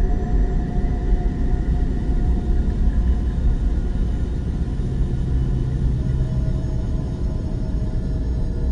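Steady low rumbling drone with a few faint held tones above it: an eerie ambient soundscape offered as the sound of planet Earth.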